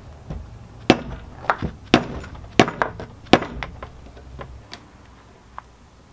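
Dowel pins being tapped into a transmission adapter plate with a mallet: about half a dozen sharp, clinking knocks in the first three and a half seconds, then a few lighter taps.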